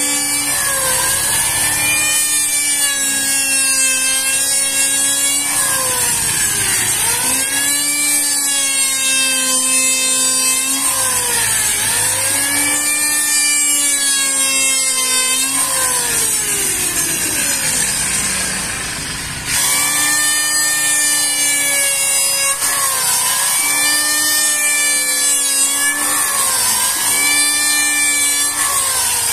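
Electric hand planer running and shaving a wooden board. Its motor pitch dips as each pass loads it and rises again between passes, every two to three seconds, over a steady high hiss. Past the middle the pitch sinks steadily for a few seconds, then the full-speed running sound comes back abruptly.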